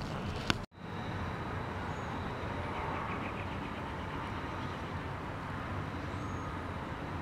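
Steady low rumble, with a sharp click about half a second in and a brief drop to silence just after it, where the recording cuts.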